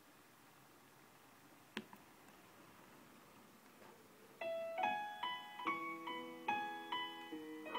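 Piano notes start about four and a half seconds in, each struck and then fading, as the next song's intro plays through SonicGear Xanadu X3 computer speakers. Before that there is only a faint hiss, with a single click a little under two seconds in.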